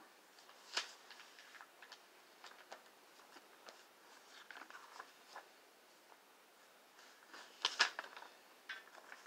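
Faint scattered rustles and soft clicks of Bible pages being leafed through, with a louder flurry of rustling about eight seconds in.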